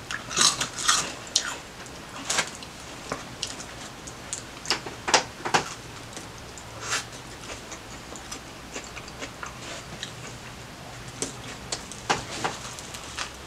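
Close-mic eating sounds: crisp crunching of hot Cheetos in the first few seconds, then biting into and chewing a toasted Subway steak and cheese footlong. Irregular crunches and clicks.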